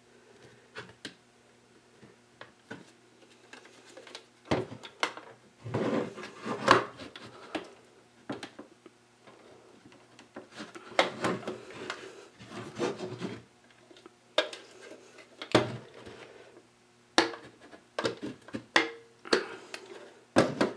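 Plastic cover of a Sensus iCon smart meter being twisted and pried by hand against its press-fit base: irregular clicks, knocks and scraping rubs of plastic on plastic as the cover resists coming off.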